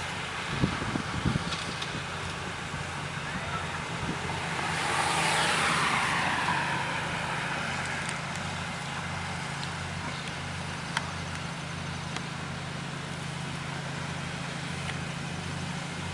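A car passing by, its swish swelling and fading about five seconds in, over a steady low hum. Wind gusts on the microphone at the start.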